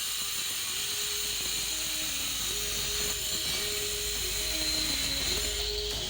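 Background music: a simple melody of held notes stepping up and down, over a steady high-pitched whine and hiss.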